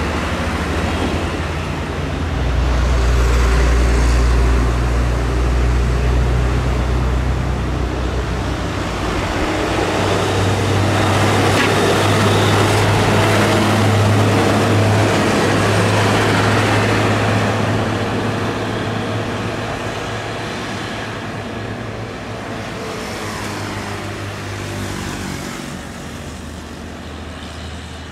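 Heavy diesel trucks passing on a busy road: a low engine drone that swells twice, strongest a few seconds in and again around the middle, then slowly fades, over steady road and tyre noise.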